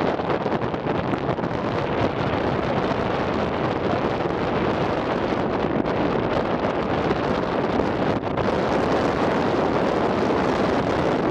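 Steady wind and road rush buffeting the microphone of a moving vehicle, an even noise with no engine note.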